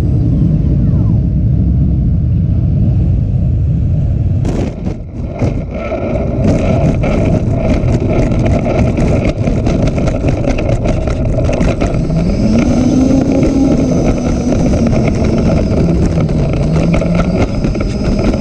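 Onboard sound of a Freewing A-10 RC jet's twin electric ducted fans and rushing air as it comes in to land. About four and a half seconds in, the model touches down with a few knocks, then rolls out over rough grass with a dense rattle from the foam airframe and landing gear. Later in the roll a lower fan tone rises and falls under a thin high whine.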